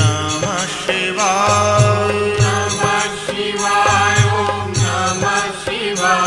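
Devotional Hindu mantra chant sung over music, with a low repeating beat and jingling bells or a rattle.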